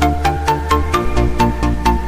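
Electronic dance music with a steady beat of about four hits a second and a synth melody; the bass line changes about a second in.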